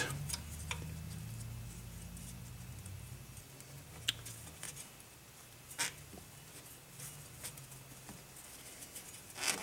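Faint handling noises and a few sharp clicks as a rubber dust cap is slipped over the piston shaft and pressed onto a rebuilt brake wheel cylinder. Under them a low hum fades away over the first few seconds.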